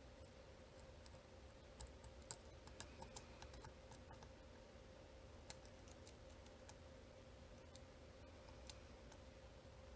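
Faint, sharp metallic clicks of a pick and tension tool working the pins of a VSR 9-pin dimple cam lock. A quick run of clicks comes about two to three and a half seconds in, then scattered single clicks, over a steady faint hum.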